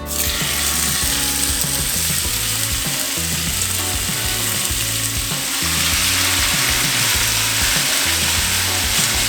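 Raw chicken thighs sizzling and spattering in hot avocado oil in a skillet on medium-high heat as they go in to brown. The sizzle starts suddenly and gets louder about halfway through.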